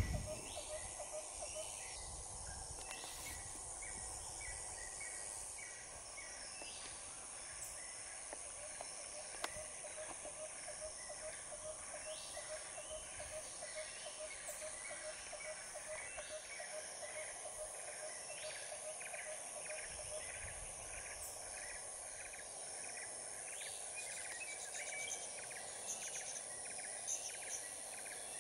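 Dry-bush ambience: a steady high-pitched insect drone, with birds calling over it in many short, repeated notes.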